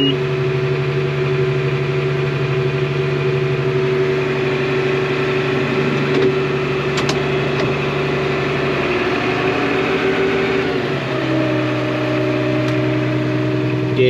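IH 3288 tractor's six-cylinder diesel engine running steadily, heard from inside the cab. Its note shifts slightly lower about ten seconds in.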